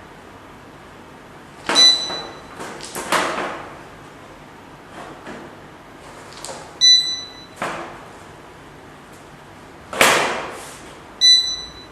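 Three short electronic beeps, a few seconds apart, from the electric wall fireplace's controls as settings are changed. Between them come several sharp knocks and clicks of handling; the loudest is a knock about ten seconds in.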